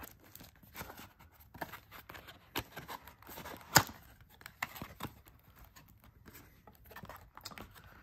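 Paperboard flaps of a Magic: The Gathering commander deck box rustling and scraping as the box is handled and opened, with scattered light clicks and one sharp snap just before four seconds in.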